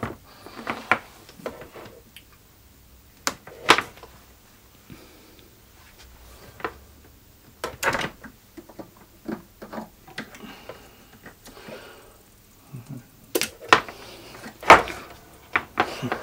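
Irregular short clicks and knocks from hands working the Kenwood TS-50 HF transceiver and its power connection while it is switched on; the loudest come in a cluster near the end.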